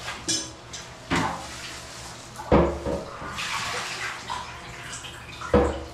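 Porcelain tank of a two-piece toilet being lifted off its bowl: several hard knocks and clunks of ceramic, the loudest about two and a half seconds in and again near the end, with the water left in the tank sloshing and splashing in between.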